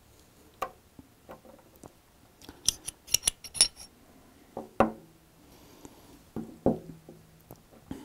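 Small metal clicks and clinks of a 9mm pistol being field-stripped: the Honor Guard's barrel and recoil spring assembly worked out of the slide and set down on a wooden table. A quick run of light clicks comes a bit before the middle, then a few sharper knocks.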